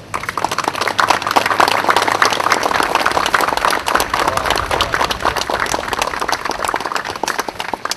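An audience applauding, starting suddenly and easing off near the end.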